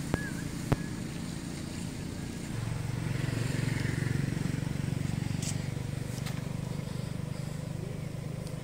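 A low, steady engine hum from a motor vehicle, swelling louder a couple of seconds in and then easing off slightly, with two sharp clicks near the start.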